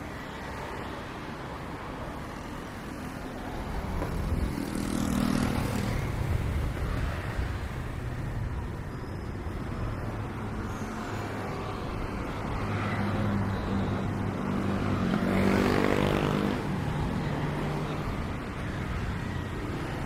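Street traffic: motor vehicles passing close by, the engine noise swelling about five seconds in and again near sixteen seconds in.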